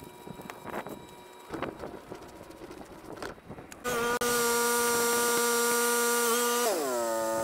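Toro zero-turn mower engine running steadily at high throttle, a loud even buzz that starts abruptly about four seconds in; near the end it is throttled down and its pitch drops to a lower hum.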